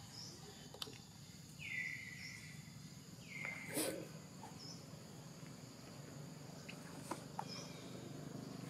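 Baby macaque giving two short, high-pitched calls about a second apart, each dipping slightly in pitch and then holding, over a steady buzz of insects and a few faint clicks.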